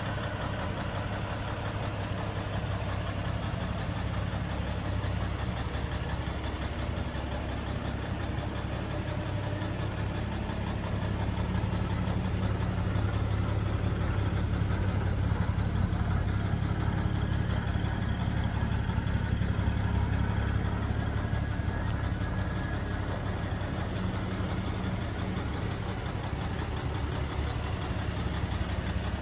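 1949 Chevrolet 3100 half-ton pickup's engine idling steadily, a little louder for a stretch in the middle.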